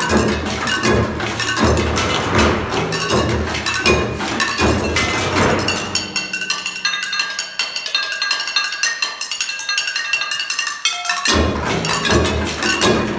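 Found-object percussion ensemble playing a rhythmic groove: low thumps of drums and buckets under quick stick clicks. About six seconds in the low drums drop out, leaving only lighter clinking taps with ringing pitched notes, and near the end the full ensemble with its low thumps comes back in.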